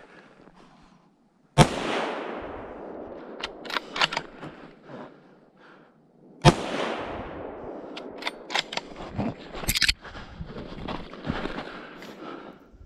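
Two rifle shots about five seconds apart, each followed by a long echo trailing off through the woods, with a few smaller sharp clicks and rustling between them.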